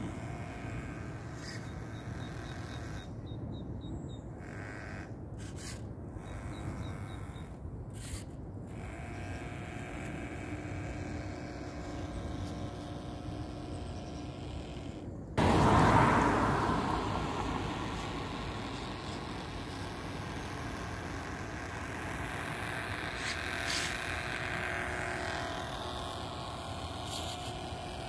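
Radio-controlled air boat's small electric motor and toroidal propeller whirring as the boat runs across a puddle. About halfway it gets suddenly louder, then fades back over a few seconds; near the end its pitch dips and rises again.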